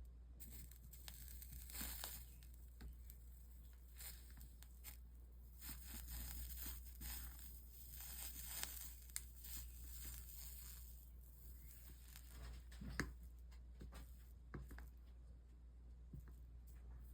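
Faint crackling sizzle of a soldering iron melting solder and flux along the copper-foiled seams of a stained-glass panel, with scattered small ticks.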